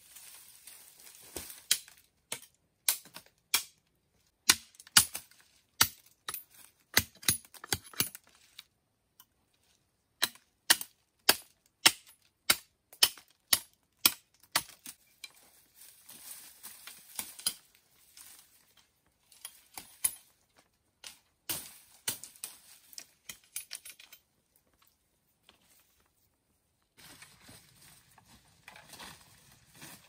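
Machete chopping and whittling a thin wooden stick: a long series of sharp chops, at times about two a second, with short pauses between runs. Near the end, rustling through leaf litter and undergrowth.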